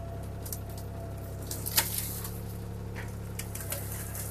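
CAT 303C CR mini excavator's diesel engine running steadily under load as its bucket pushes a tree over, with sharp cracks of the wood giving way, the loudest about two seconds in.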